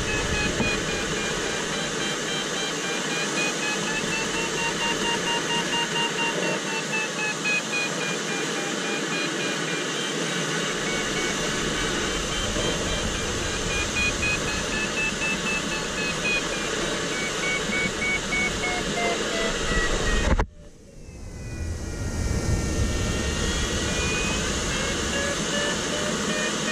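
Steady airflow hiss in a sailplane cockpit, with the audio variometer sounding tones whose pitch slowly rises and falls with the lift. The sound cuts out abruptly about twenty seconds in and fades back in a moment later.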